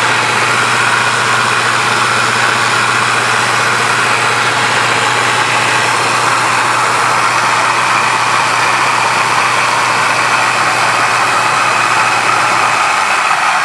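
Homemade 2x60 belt grinder running steadily with no work on it, a little loud: its motor and abrasive belt whirring over laminated plywood pulleys, with bearings that still need oiling. A low steady hum under the whir drops away near the end.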